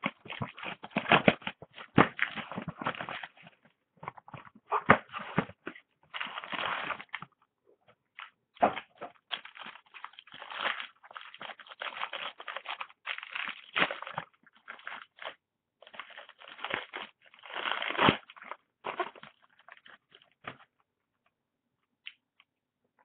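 Hands unwrapping and handling trading-card boxes and packs: irregular crinkling and rustling of plastic wrap and cardboard in short bursts, which stops near the end.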